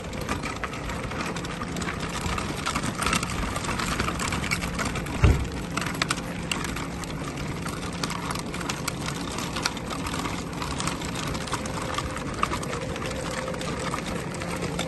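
Folding wagon's wheels rolling and rattling over rough pavement, a continuous clatter of small clicks, with one heavy thump about five seconds in.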